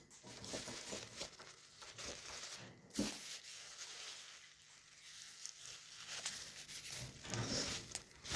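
Baby cockatiel's raspy, hissing begging noises while being syringe-fed, with scratchy rustling throughout and one knock about three seconds in.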